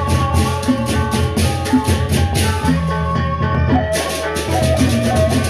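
Sasak gendang beleq gamelan playing: a row of small bronze kettle gongs struck in quick patterns, clashing hand cymbals keeping a fast, even pulse, a bamboo flute and deep drums underneath.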